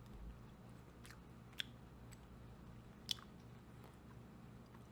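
Faint chewing of a cracker and pepperoni snack, with a few small crunches or mouth clicks, the clearest about a second and a half and three seconds in, over a low steady room hum.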